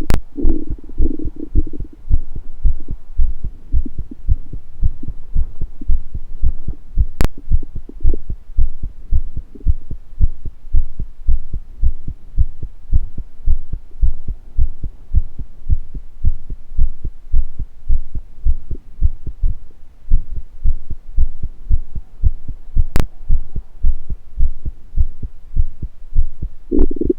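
Human heartbeat picked up close against the body, a steady run of low thumps. A stomach gurgle rumbles over it in the first second or so and comes back near the end.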